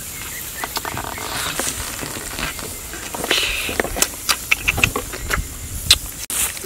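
Grubs frying in a clay pan over a wood fire: a steady sizzling hiss, with sharp clicks of bamboo chopsticks tapping the pan as they stir, thickest about four to five seconds in.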